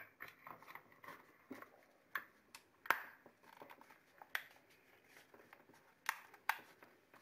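Faint handling of a plastic power-supply brick: scattered light clicks and knocks as its two case halves are pressed back together and its cord is moved, the sharpest knock about three seconds in.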